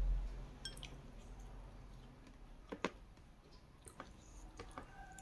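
Close-miked mukbang eating sounds: fried chicken picked apart with the fingers and chewed, giving scattered small clicks and soft wet squishes, with one sharper click a little under three seconds in.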